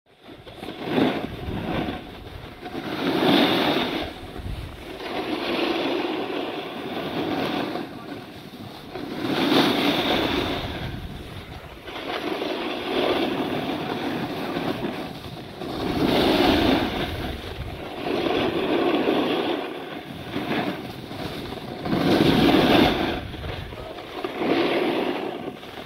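Skis sliding and carving on packed snow, with wind on the microphone: a rushing scrape that swells and fades with each turn, about every three seconds.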